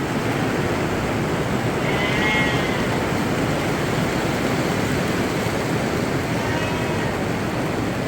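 Sheep bleating: one clear call about two seconds in and a faint one near seven seconds, over a steady rushing background noise.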